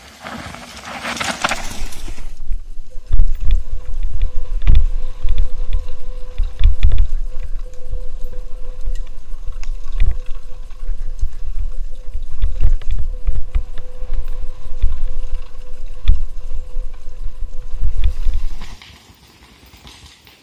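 Wind buffeting and rumble on a helmet-mounted camera's microphone as a mountain bike runs fast down a rough dirt trail, with frequent knocks from the bike over bumps. A thin steady tone runs through it, and it all stops abruptly near the end.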